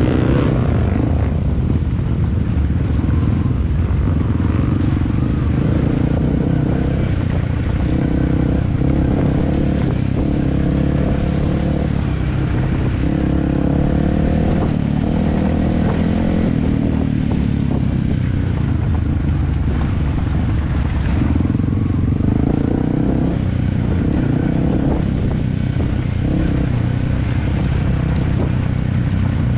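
Yamaha WR155 trail bike's single-cylinder four-stroke engine running as the bike is ridden over a rocky dirt trail, heard from on the bike. The engine note rises and falls repeatedly with the throttle.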